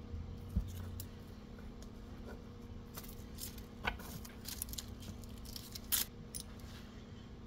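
Kitchen handling sounds from a knife and a peeled onion on the work surface: a few sharp clicks, the loudest about six seconds in, among light papery rustling. A steady low hum runs underneath.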